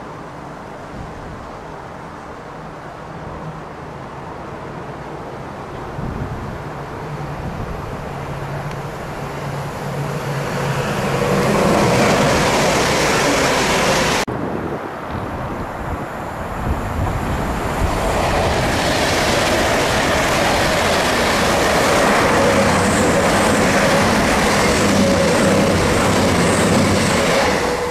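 A train passing close by, its noise building to a loud steady rush with a steady hum in it. The sound breaks off suddenly about halfway through, then a passing train's noise builds again and holds loud until near the end.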